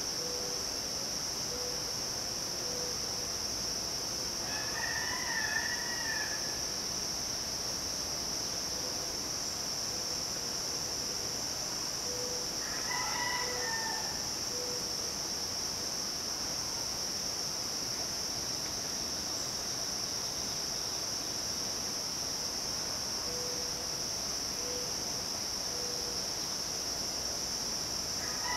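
Midsummer insects droning in a steady high hiss, with a rooster crowing twice, about five seconds in and again around thirteen seconds, and a third crow starting right at the end.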